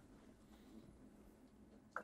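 Near silence: room tone, with one short faint click near the end.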